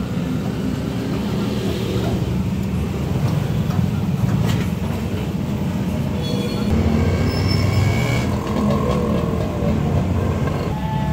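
Steady low mechanical rumble, with a sharp click about four and a half seconds in.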